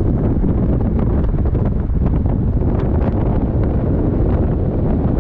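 Wind buffeting the microphone of a camera at the window of a moving car: a loud, steady rumble.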